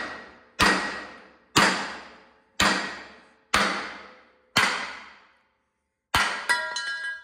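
Hammer striking a steel part on a Chevy C10 truck frame to knock it loose. There are six evenly spaced blows about a second apart, each ringing out, then two quick strikes near the end with a clear metallic ring.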